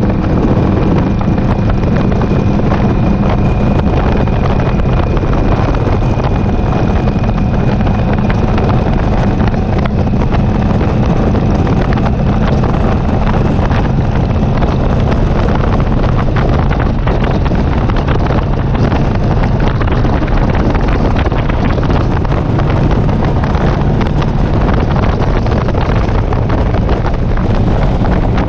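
Cruiser motorcycle engine running steadily at road-cruising speed, with wind buffeting the helmet-mounted microphone.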